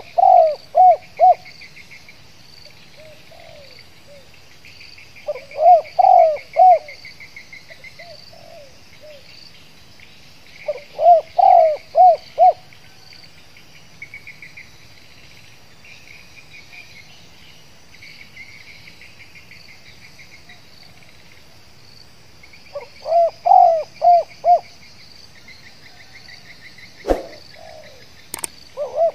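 Spotted dove (tekukur) cooing in its stuttering 'gagap' style: four phrases, each a quick run of short notes, the last after a pause of about ten seconds. Insects chirr steadily underneath, and a sharp knock sounds near the end.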